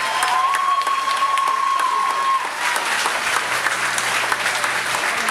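Ringside crowd clapping and cheering during a kickboxing bout, a dense steady wash of clapping. One long high-pitched held call rises above it for about two seconds near the start.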